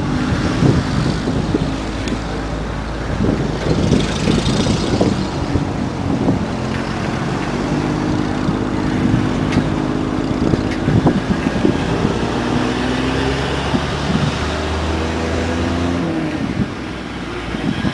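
Antique vehicle engines running at low speed, several engine notes overlapping and shifting slowly in pitch, with a deep steady hum that stops about sixteen seconds in.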